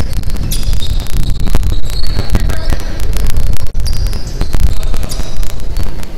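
Basketball game on a hardwood gym floor: sneakers squeaking in short high chirps amid a rapid run of thuds and knocks from the ball and players' feet, over a steady low rumble.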